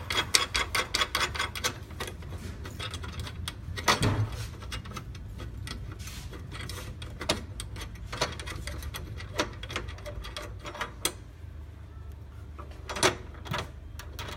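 Socket ratchet clicking quickly and evenly as a bracket nut is run on, followed by scattered metallic clicks and knocks of the brackets and fixings, with a louder knock about four seconds in.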